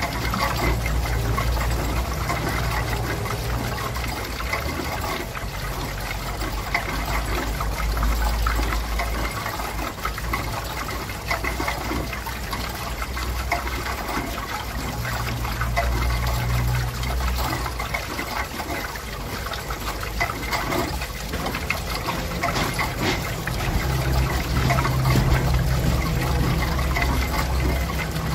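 Small water wheel with water spilling and splashing off it in a steady trickle and splash, and a low rumble underneath that swells and fades every few seconds.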